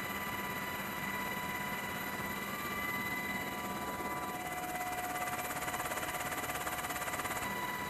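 Cabin noise of a US Navy MH-60S Seahawk helicopter in flight, heard from the cockpit: a steady rotor and turbine drone with several constant high whines and a slight rapid pulsing.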